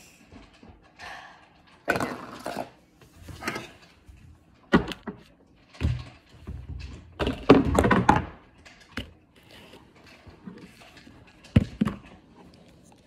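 Plastic slime tubs being handled on a wooden table: picked up, turned and set down, giving a run of irregular thunks, clicks and scrapes, the loudest cluster about halfway through.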